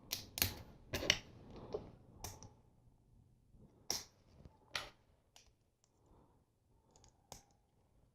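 Plastic LEGO pieces clicking as they are handled and snapped together: a scatter of sharp clicks, several close together in the first second or so and a few spaced out after that.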